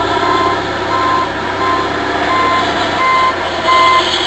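Heavy machine's reversing or travel alarm beeping steadily, about one beep every 0.7 seconds, over a diesel engine running.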